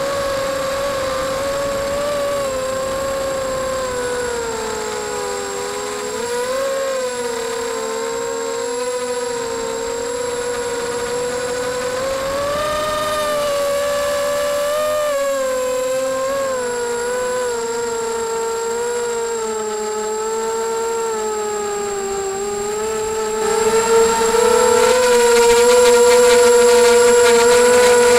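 Brushless motors and propellers of a 250-size racing quadcopter whining, the pitch rising and falling with the throttle, as picked up by the camera on board. About 23 seconds in the whine gets louder and rougher.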